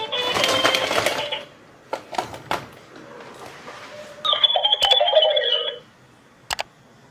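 Music runs on and stops about a second and a half in, followed by a few sharp clicks. Then comes a short electronic ringing tone lasting about a second and a half, and a click near the end.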